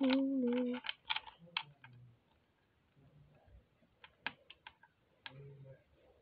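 A child's hummed tune breaks off less than a second in. Scattered light clicks and taps follow, a few at a time: a hermit crab's legs and shell knocking on plastic LEGO plates as it moves.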